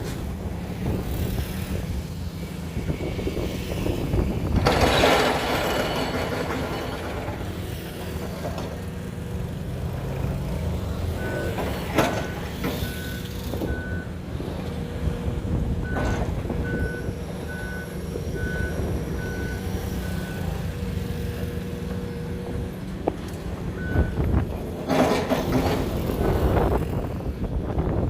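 Heavy diesel construction machinery rumbling steadily on a sheet-piling site. A reversing alarm beeps at an even pace for several seconds in the middle, and two loud bursts of hissing come about five seconds in and near the end.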